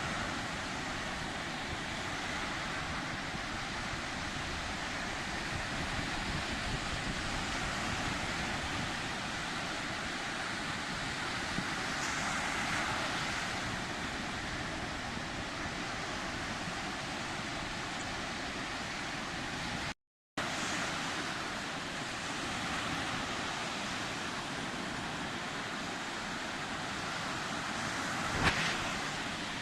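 Sea surf: waves washing in a steady, continuous rush. The sound drops out completely for a fraction of a second about two-thirds through, and there is one sharp click near the end.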